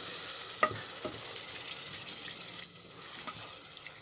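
Onion and spice paste, loosened with a little water, sizzling in a steel saucepan, the sizzle thinning out about two-thirds of the way through. A wooden spoon stirring it knocks against the pan a few times.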